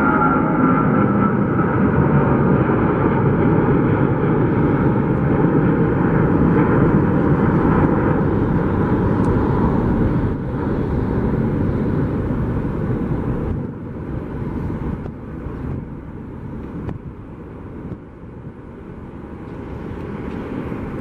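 Boeing 777-200 twin jet engines at takeoff thrust, a loud steady roar as the airliner lifts off and climbs away. The roar fades in steps over the second half as it recedes.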